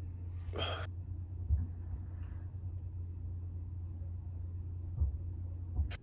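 A man breathing out in one sigh-like breath about half a second in, over a steady low hum, with a few soft low thumps later on.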